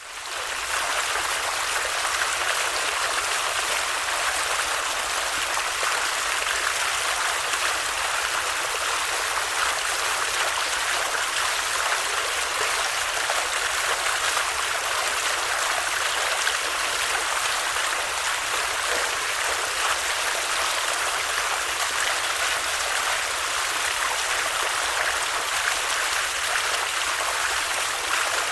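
Stream of water flowing, a steady, even splashing hiss with no change in level after it fades in during the first second.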